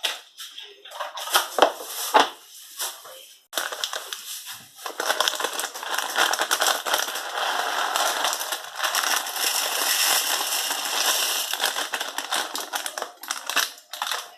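Whole peppercorns being milled in a NutriBullet blender, the hard corns cracking and rattling against the blade and cup. There are a few separate sharp cracks in the first three seconds or so, then a dense, continuous crackling grind that stops just before the end.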